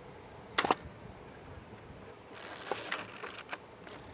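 Mamiya RZ67 Pro II medium format camera firing: a sharp double clack of the mirror and shutter about half a second in, then, a couple of seconds later, a noisy mechanical stretch of about a second with clicks in it as the film is wound on.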